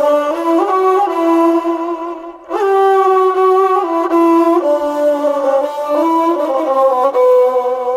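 A wind instrument playing a stepwise lullaby melody in two phrases, with a short breath-like break about two and a half seconds in; an instrumental interlude between sung verses of a Turkish lullaby.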